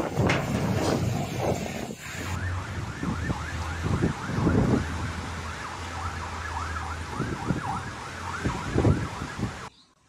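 Strong storm wind buffeting the microphone for about two seconds. After a cut, an electronic siren or alarm wails in fast repeating sweeps, about three a second, over continuing wind gusts.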